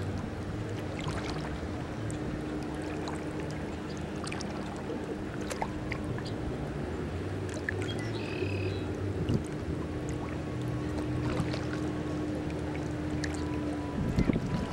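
A motor running with a steady low hum, which cuts off about fourteen seconds in, over lapping water and small scattered ticks. A short high call sounds once, a little past halfway.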